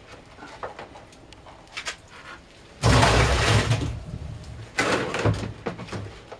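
Crushed red grape must tipped from a plastic scoop into a plastic fermenting barrel: about three seconds in, a loud splashing pour that fades over about a second, then a shorter one soon after. Light plastic knocks from the scoop being filled come before.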